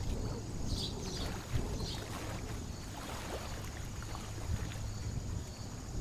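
A few short high begging peeps from little grebe chicks at the nest, about a second and two seconds in, over a steady low rumbling background noise.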